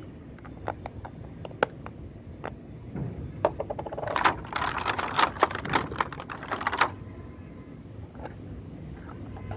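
Small plastic toy pieces and their packaging being handled: scattered sharp clicks and taps, and a dense run of rapid clicking and crinkling from about four seconds in to about seven seconds in.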